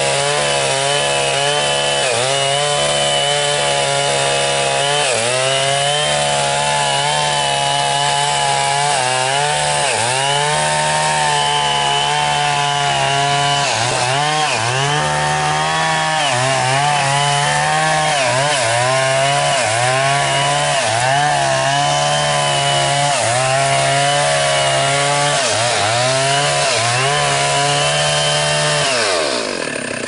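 Two-stroke chainsaw cutting into a standing tree trunk at full throttle, its engine note dipping and recovering every second or two as the chain bites into the wood. Near the end the revs fall off sharply to idle.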